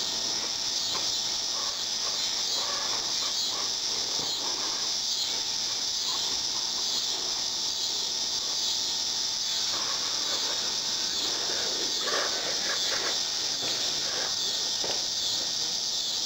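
Steady, high-pitched insect chorus filling the air, with a few faint short sounds about ten to fifteen seconds in.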